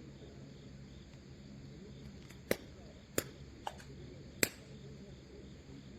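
Four sharp clacks within about two seconds (the third is faint) over a low background murmur.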